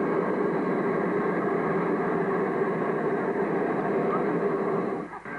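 A hot-air balloon's propane burner firing: a steady, loud roar that cuts off abruptly about five seconds in.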